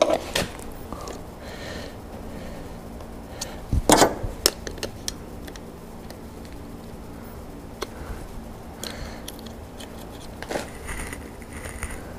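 A few light knocks and clicks of a steel angle-iron bracket and a tape measure being handled against a steel bumper, the loudest cluster about four seconds in, over a steady low hum.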